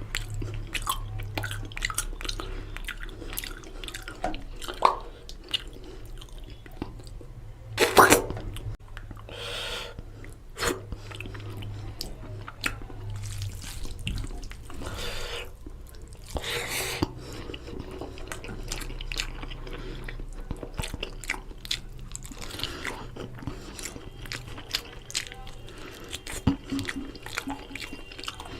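Close-up wet chewing and smacking of someone eating mutton curry with rice: many short clicks with a few louder wet bursts.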